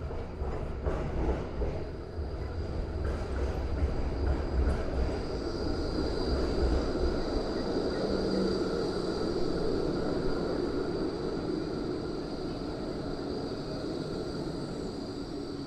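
Melbourne tram running along its rails close by: wheel and track noise with a steady high whine, loudest in the middle.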